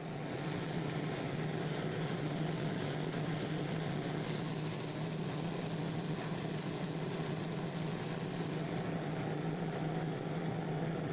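A machine running steadily, starting suddenly, with an even low hum and a high whine over it.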